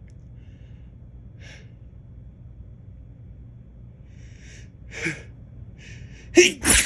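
A man building up to a sneeze: a few faint catching inhales, a louder gasping breath about five seconds in, then a loud sneeze near the end in two quick blasts.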